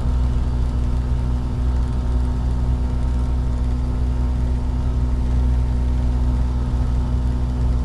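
Kitfox Model 2's Rotax 582 two-stroke twin engine and propeller running steadily, heard from inside the cabin.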